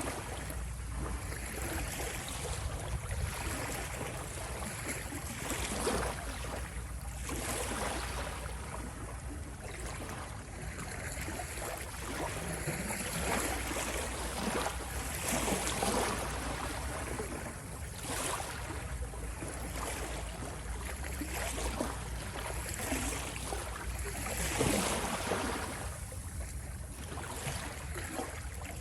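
Ocean waves breaking and washing in, a continuous hiss of surf that swells every few seconds over a steady low rumble.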